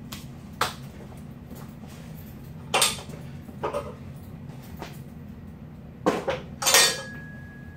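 Metal clanks and knocks from a loading pin stacked with iron weight plates being handled and set down, several scattered strikes. The loudest clank comes a little before the end and leaves a faint metallic ring. A steady low hum runs underneath.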